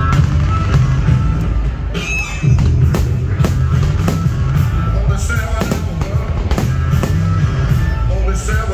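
Fireworks display: a string of sharp shell bursts at irregular intervals, one or two a second, over a loud, steady music soundtrack played for the show.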